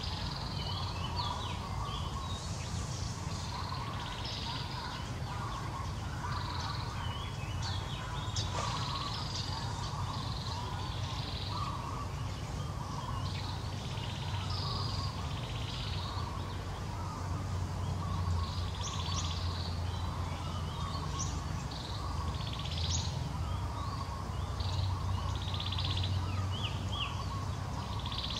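Many birds chirping and calling without a break, over a steady low hum.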